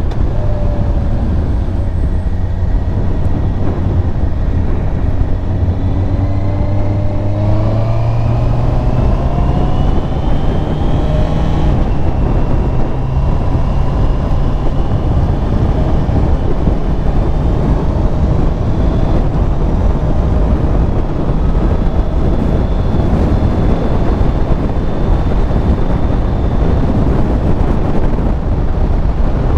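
Honda CBR650R inline-four engine under way on a test ride, under a heavy rush of wind noise. The engine pitch climbs as the bike accelerates, breaks about twelve seconds in as it shifts up, then holds fairly steady at cruising speed.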